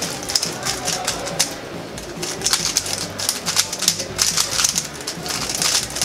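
Two Moyu RS3M-series 3x3 speed cubes, used fresh out of the box, being turned very fast in a solving race. The result is a dense, continuous stream of quick plastic clicks and clacks from the turning layers.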